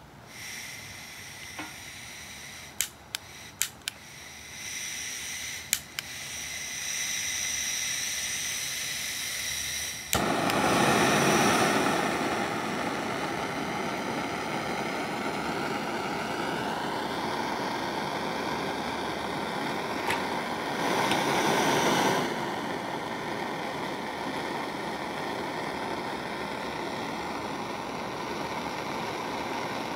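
Handheld butane gas torch: a few sharp igniter clicks and a rising gas hiss, then from about ten seconds a steady rushing flame, briefly louder about twenty seconds in.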